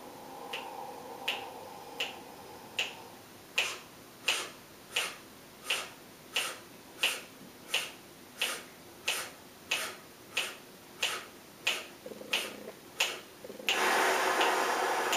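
Steady finger snaps keeping count, about three snaps every two seconds, while a person draws a deep open-mouthed breath in and then holds it. Near the end the held breath is let out in a loud, forceful rushing exhale.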